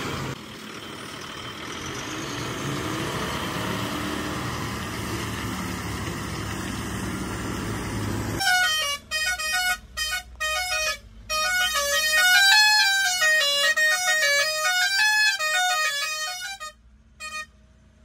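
Steady engine noise, then about eight seconds in a musical vehicle horn plays a quick tune of stepped notes rising and falling for about eight seconds, with short breaks, before cutting off.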